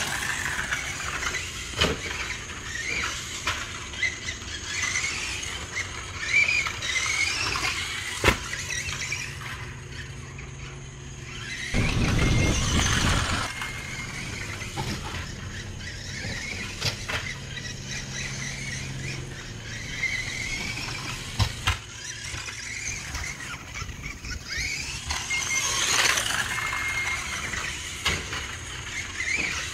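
Tamiya Grasshopper RC buggy's Mabuchi RS380 electric motor and gearbox whining, the pitch rising and falling again and again as it speeds up and slows down around the dirt track, with scattered sharp knocks. About twelve seconds in there is a loud rush of noise for over a second.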